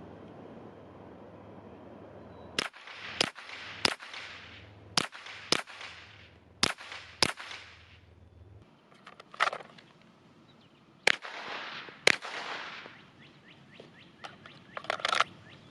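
Glock 17L 9mm pistol firing single shots, about nine spread over the stretch, some in quick pairs and some spaced apart. Each shot has a short fading echo.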